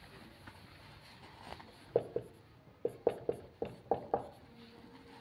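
Marker pen knocking against a whiteboard while writing: about eight sharp, short taps in quick succession, starting about two seconds in and stopping just after four seconds, as letters and a triple-bond sign are drawn.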